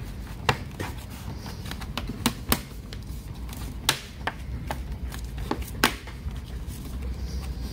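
Irregular sharp clicks and taps of the plastic bottom cover of a Lenovo IdeaPad 330 laptop being pressed and fastened shut, about eight in all, over a low steady hum.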